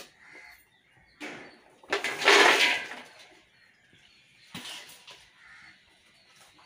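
Chopped vegetables tipped off a woven bamboo winnowing tray into a large aluminium pot of water, with a loud rushing splash about two seconds in. Lighter rustles and knocks of the tray come before and after.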